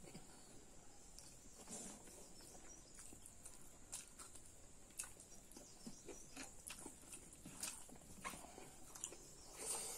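Faint mukbang eating sounds: chewing and mouth noises, with fingers mixing rice and pork curry. They come as scattered soft clicks and smacks about once a second.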